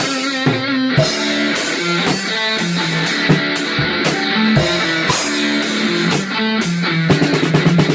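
Guitar music: a line of picked notes with strummed chords, ending in a quick run of strums.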